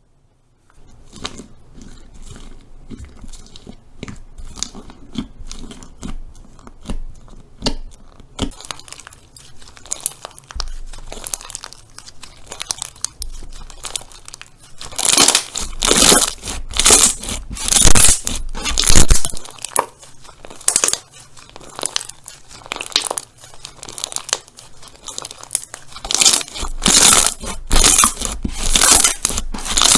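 Slime being squished and pressed, giving a dense crackle of small sharp pops and clicks. It grows louder and thicker in bouts about halfway through and again near the end.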